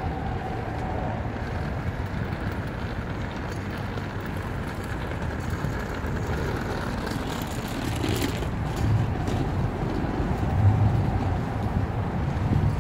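Steady low rumble of outdoor background noise, with a brief louder hiss about eight seconds in.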